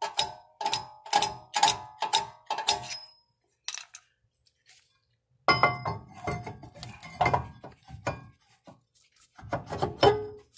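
Metal clicks with a light ring, about three a second, as the star-wheel adjuster of a 2003 BMW Z4's rear parking-brake shoes is turned with a pick through a hole in the rotor. After a pause, a scraping rattle as the rotor is turned by hand with the shoes dragging inside it: the adjuster has been set too tight.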